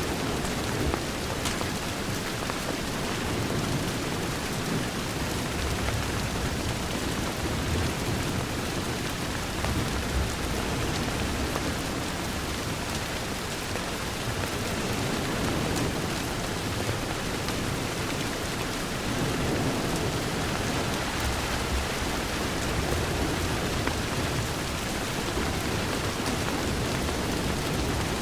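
Steady rain on a window, an even hiss with a low rumble underneath and a few faint ticks.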